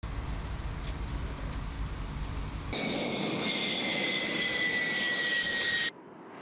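Low rumble of a military truck convoy driving. About three seconds in it gives way to military jet engines whining, with two high steady tones that drift slightly lower. The whine cuts off suddenly near the end.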